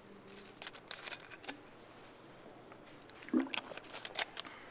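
Scattered light clicks, knocks and rustles of handling and movement in a quiet lecture hall, with a louder cluster of knocks about three and a half to four seconds in.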